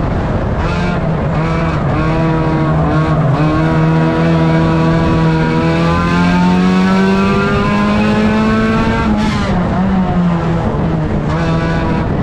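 1600cc banger racing car's engine running hard under load, heard from inside its stripped cabin. Its pitch climbs slowly, then drops sharply about nine seconds in and runs steady again.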